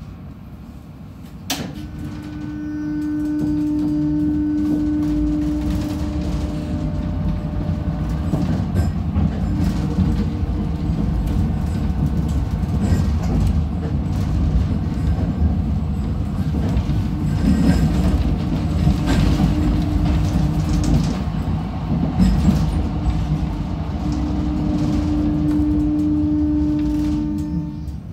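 HCP 123N tram running on its rails, heard from inside the car: a continuous low rumble of the wheels and running gear with a steady hum from the electric drive. The hum fades in the middle and comes back strongly near the end, and there is a sharp click about a second and a half in.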